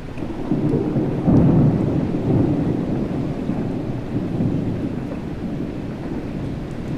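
Rolling thunder during a rainstorm: a low rumble swells about a second in, peaks, and slowly dies away over the steady hiss of rain.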